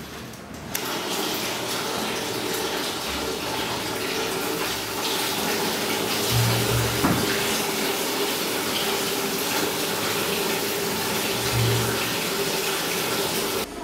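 Water running hard from a sink tap into a ceramic basin, a steady splashing rush. It starts about a second in and cuts off abruptly near the end.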